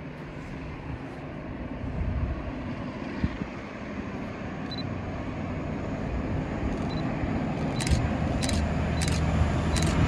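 Diesel-hauled tanker freight train approaching, its rumble and engine note growing steadily louder.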